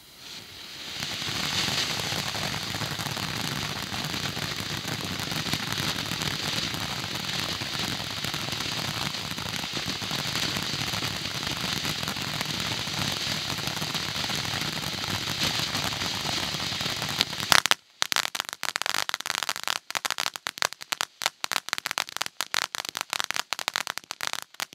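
Red Rhino 'Lucky Charm' firework fountain spewing sparks with a steady, loud hiss that builds up within the first two seconds. About three-quarters of the way through, the hiss gives way to a rapid, ragged run of crackling pops as it burns out.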